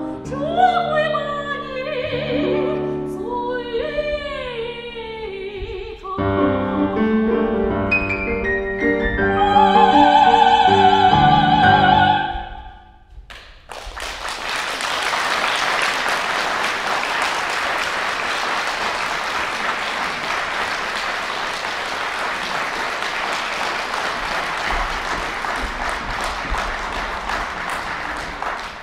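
Soprano singing with piano accompaniment, closing on a long, loud high note with vibrato. After a brief pause, audience applause rises and runs on steadily.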